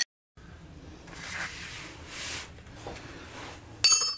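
Hand work under the truck: soft scraping and rustling, then near the end a sharp clank of metal on metal that rings briefly.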